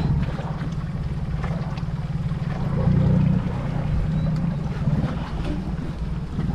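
A motor running steadily at a low pitch, with wind on the microphone.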